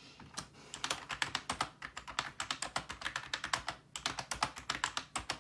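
Typing on a computer keyboard: rapid, irregular key clicks with a brief pause about four seconds in.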